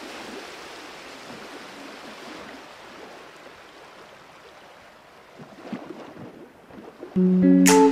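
Steady washing noise of sea water that slowly fades, with a few low rumbles, then guitar music comes in loudly near the end.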